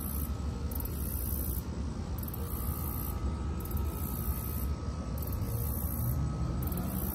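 Steady outdoor background rumble and hiss, with a motor vehicle approaching, its engine note rising over the last second or two.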